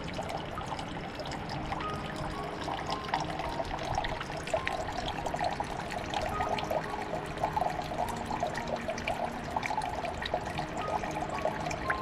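Running water trickling and babbling, growing busier a few seconds in, with soft background music notes over it.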